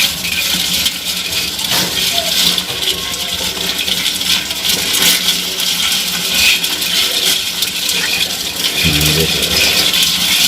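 Crabs clicking and crackling: a dense, continuous patter of small clicks and rattles.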